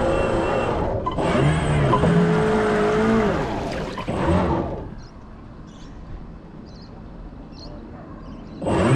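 Small electric motor of a radio-controlled model boat whining in spells, its pitch winding up, holding and winding down over the first four and a half seconds. It drops to a low background until it starts up again near the end.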